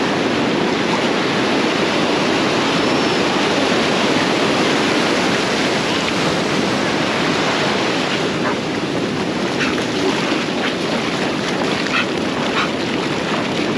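Ocean surf washing steadily over the shallows, with wind buffeting the microphone.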